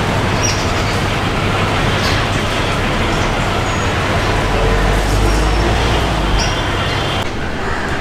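Steady road traffic noise from passing vehicles, with a deeper rumble swelling past around the middle.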